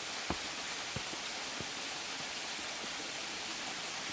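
Steady rush of water from a small waterfall and stream, with three dull footfalls on stairs in the first two seconds.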